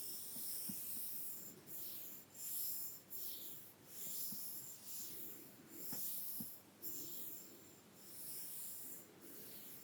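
Soft makeup brushes sweeping over bare skin in light tracing strokes: a series of soft, high swishes, roughly one a second, with short pauses between them.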